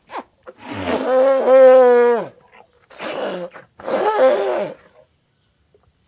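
Elephant calling three times: a long call held level for over a second before dropping in pitch, then two shorter calls, the last one falling in pitch.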